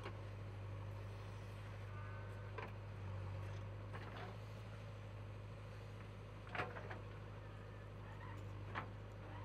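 JCB 3DX backhoe loader's diesel engine running with a steady low hum while the backhoe works, with a few sharp knocks from the bucket and soil being dumped into a tipper truck, the loudest about two-thirds of the way through.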